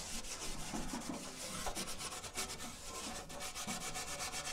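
Grill being scrubbed with soap powder and bleach: a continuous run of quick scrubbing strokes.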